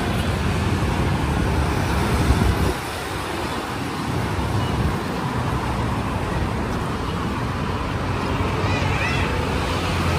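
Road traffic noise from motorbikes and cars passing on a busy city street. A heavy low rumble fills the first few seconds and drops away sharply a little under three seconds in, leaving a steady lighter wash of traffic.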